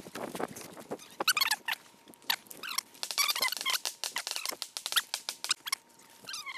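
Footsteps on a gravel path, with repeated high squeaks that glide down in pitch.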